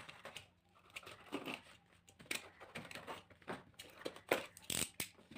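Packaging being opened and handled by hand: irregular crinkling, rustling and scraping, with a few sharper rustles near the end.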